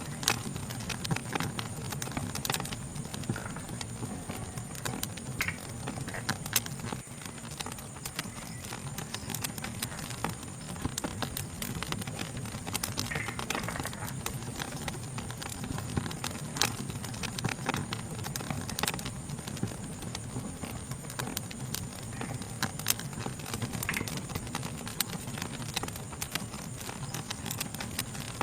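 Fire crackling, with frequent irregular sharp pops over a low steady rumble. A steady high-pitched insect chorus carries on underneath.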